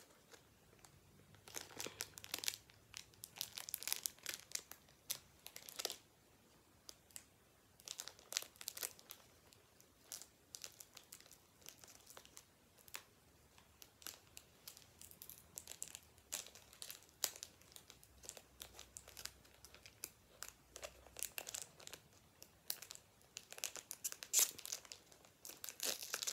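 Foil wrapper of a Pokémon trading card booster pack crinkling and tearing in irregular bursts as it is worked open with difficulty.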